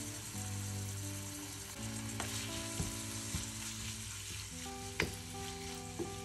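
Diced chicken breast sizzling steadily in hot oil in a non-stick frying pan, with a few sharp taps of a utensil on the pan as it is stirred, the loudest about five seconds in.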